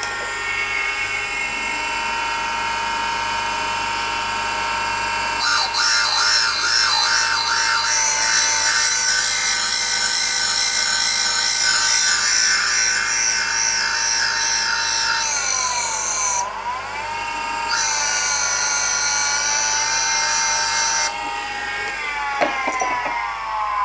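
A Warren & Brown valve refacer's motors whine steadily. The grinding wheel cuts the face of a worn Toyota 1KZ-TE valve, adding a high grinding hiss from about five seconds in, with a short break past the middle. This is the worn low spot being ground off to bring the face back to the right angle. The grinding stops a few seconds before the end and the machine's whine falls away as it winds down.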